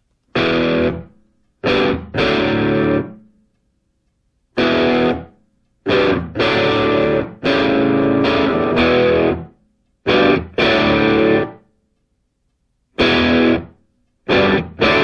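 Background music: distorted electric guitar playing short chord stabs separated by silences, running into a held chord near the end.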